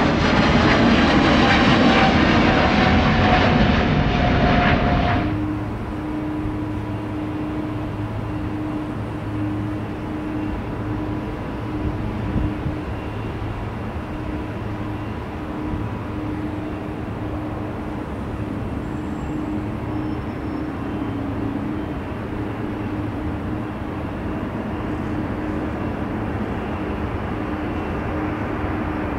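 Boeing 777-300ER jet engines loud at takeoff power, with a whine falling in pitch as the jet passes, cut off abruptly about five seconds in. After that another Boeing 777-300ER's jet engines run steadily at a distance, with a low hum that breaks in and out.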